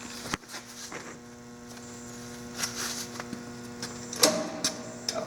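Steady electrical hum, with a few scattered clicks and knocks of handling through it.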